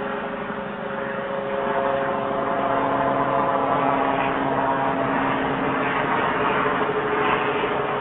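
Sikorsky S-76B helicopter flying overhead, picked up faintly by a doorbell camera's microphone and amplified far up, so it comes through as a steady drone with a few held tones under heavy hiss. It grows a little louder about two seconds in.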